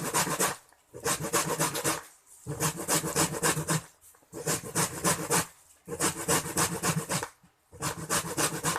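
Lemon peel being rubbed hard on a fine hand grater to take off the yellow zest: rapid rasping strokes in six runs, each about a second long, separated by brief pauses.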